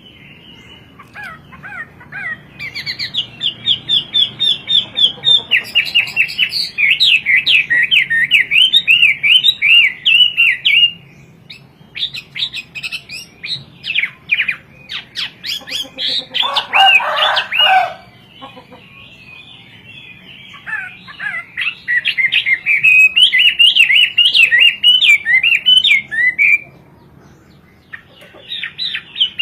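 Chinese hwamei singing loudly: long phrases of fast, repeated whistled notes sweeping up and down, broken by short pauses, with a harsher, lower passage partway through.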